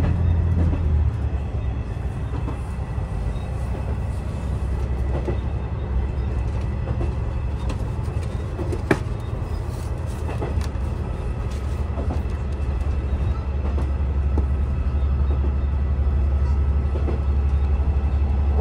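Cabin noise of a moving diesel railcar: a steady low engine and running drone with scattered light clicks, and one sharper click about halfway through.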